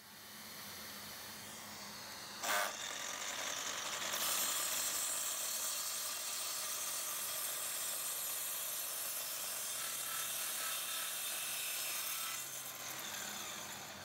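Mitre saw cutting through a stack of pine boards: after a short knock about two and a half seconds in, the blade cuts with a steady high hiss, which eases off near the end as the saw runs down.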